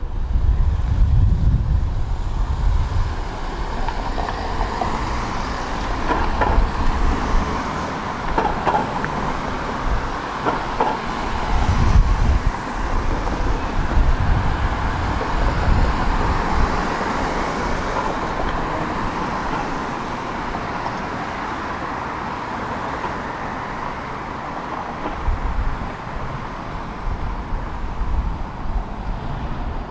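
Steady city road traffic: a continuous rush of cars passing, with low rumbles swelling and fading several times.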